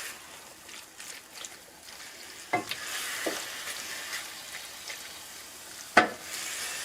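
Chicken sizzling in a frying pan as it is stirred, with two sharp knocks of the stirring utensil against the pan, the louder one near the end.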